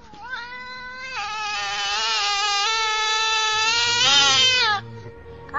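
Black-and-white domestic cat yowling: a brief quieter call, then one long loud yowl of about three and a half seconds that wavers and drops in pitch as it ends.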